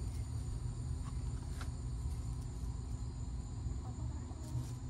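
Steady high insect trilling over a low, even rumble. A short hissing spritz from a hand-held trigger spray bottle comes about one and a half seconds in, and another near the end.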